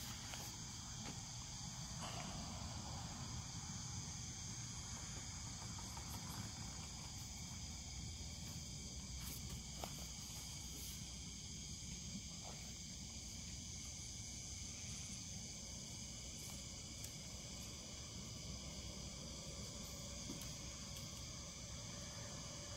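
Steady high-pitched chorus of night insects, several overlapping trills droning without a break. A few faint ticks sound over it.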